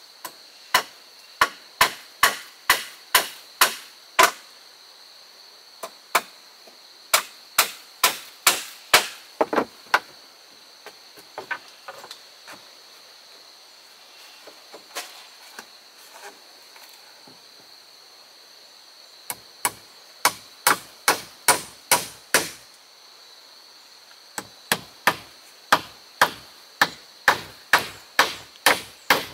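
A hand tool striking wood in quick runs of sharp blows, about two a second, broken by short pauses, with a few lighter taps between the runs.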